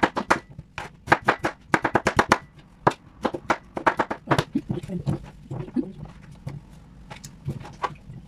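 Kitchen knife chopping fruit on a plastic cutting board, a quick run of sharp knocks. About halfway through the knocks thin out into duller thumps and clatter as the cut cubes are scooped up and dropped onto a plate.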